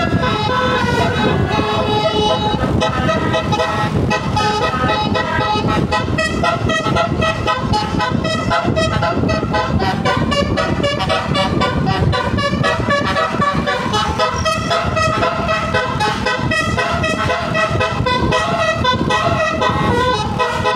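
A tour bus's telolet basuri horn, a multi-trumpet melodic horn, playing a tune note after note without a break.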